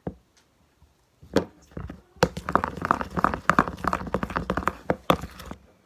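Slime being mixed with a utensil in a bowl: a single tap about a second and a half in, then about three seconds of quick tapping and squishing.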